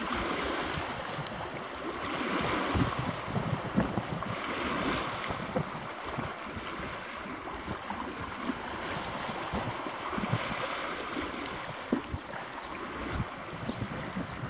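Wind buffeting the microphone in gusts over the wash of small waves, which swells and fades every few seconds.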